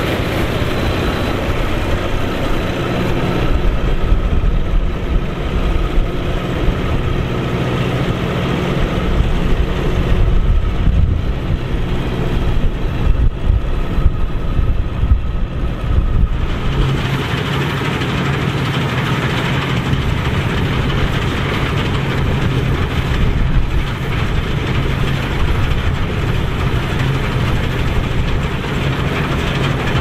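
Massey Ferguson 87 combine harvester at work threshing barley: its engine runs steadily under load beneath the dense, even noise of the threshing machinery. The engine note changes a little over halfway through.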